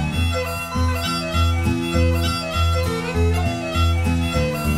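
Background music: a lively tune of held melody notes over a steady, bouncing bass beat.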